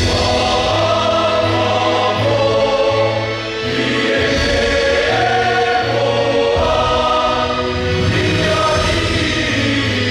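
Large mixed choir of men and women singing a hymn, with long held notes and a brief dip in loudness about three and a half seconds in.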